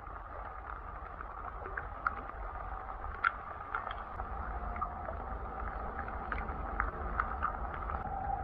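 Creek water running and lapping, with scattered small sharp splashes and drips over a steady low rumble.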